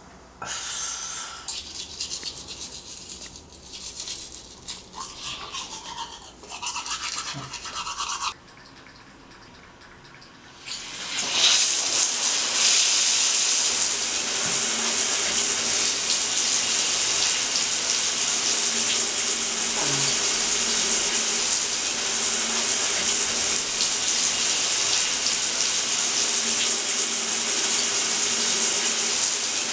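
Irregular short bursts of rubbing noise for several seconds, then a brief lull, then water starts running and keeps running hard with a steady hiss, like a shower or bath tap turned full on.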